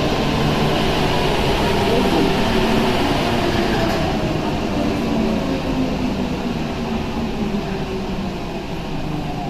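Running noise of a Paris Métro MP05 rubber-tyred train, heard from inside the car: a steady din carrying several tones that sink slowly as the train slows.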